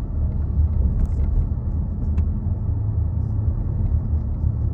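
Steady low rumble of a train, heard from inside the carriage, with a few faint ticks.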